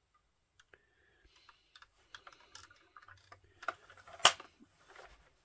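Small scattered clicks and taps from a 1:18 scale diecast Mercedes E-Class model car being handled, its opening doors and bonnet being worked, with one sharp louder click a little over four seconds in.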